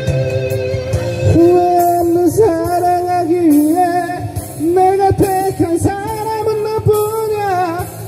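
Karaoke backing music through PA speakers, with a man singing a sustained, sliding melody over it into the microphone from about a second in.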